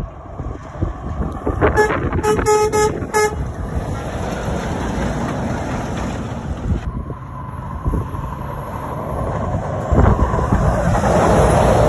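Lorry air horn giving several short toots in quick succession about two seconds in, over the diesel engine and tyre noise of an articulated lorry passing close by. Near the end the engine and road noise of a second approaching lorry grows louder.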